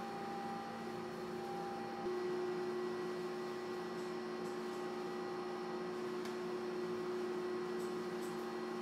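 Steady electrical hum made of several held tones, with one tone growing louder about two seconds in. A few faint clicks sound over it.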